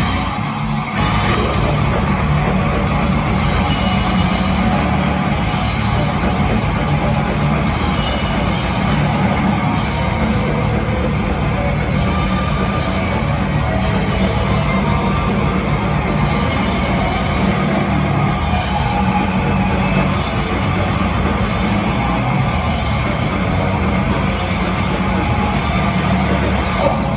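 Death metal band playing a song live at soundcheck: distorted electric guitars and a drum kit, loud and dense without a break.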